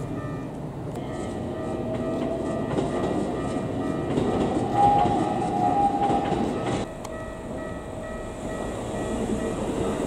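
Keikyu electric train running on the line, with a steady whine and scattered clicks; the sound drops quieter about seven seconds in.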